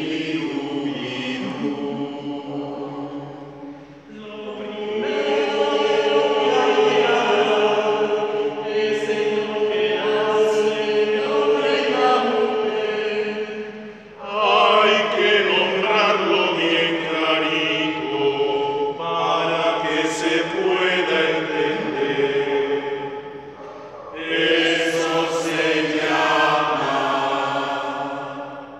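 Mixed choir of men's and women's voices singing unaccompanied, holding chords through long phrases broken by short breaths about every ten seconds.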